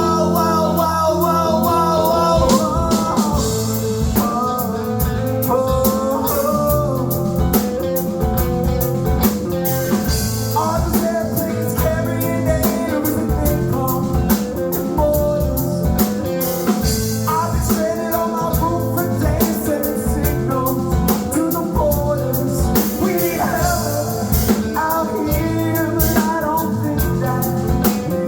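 Rock band playing a song with a steady drum-kit beat, guitar and a singing voice.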